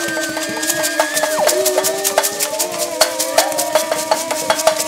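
Children's soundtrack music on homemade instruments made from recycled materials: a shaker rattles in a quick, steady rhythm under held and sliding pitched notes, one high note dropping away sharply about a second in.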